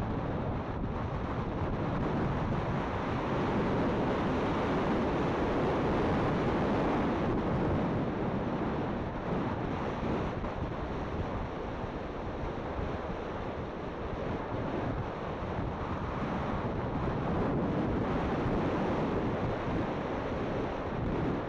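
Steady rushing wind noise buffeting the microphone, with a low rumble, swelling and easing a couple of times.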